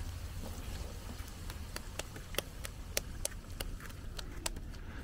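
Fry bread frying in hot oil in a pot over a wood fire: sharp, irregular crackling pops, most of them from about a second and a half in, over a low rumble.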